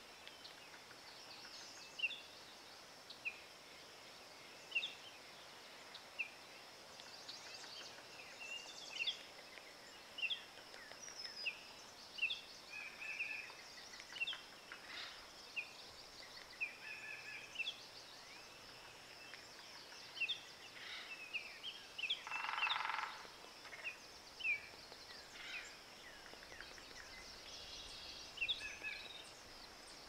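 Forest bird ambience: many short, high bird chirps scattered throughout over a steady high hiss. About two-thirds of the way through comes one louder, longer call.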